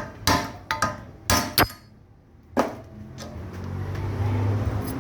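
Sharp metallic knocks and clinks, about six in the first three seconds, as parts are worked off a removed front shock absorber.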